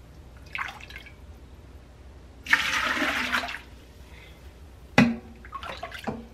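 Chicken broth scooped with a large glass measuring cup and poured into a metal stockpot: a brief dip about half a second in, a splashing pour lasting about a second midway, then a sharp knock as the glass cup strikes the pot.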